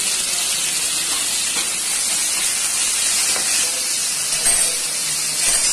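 Onions and freshly added chopped tomatoes sizzling in hot oil in a kadhai: a steady hiss.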